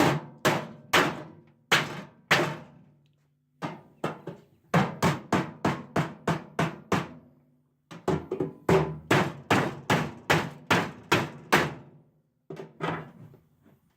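Hammer striking a chisel against a microwave's sheet-metal housing in runs of sharp, ringing blows, about three a second, with short pauses between the runs: knocking out screws whose heads are rounded.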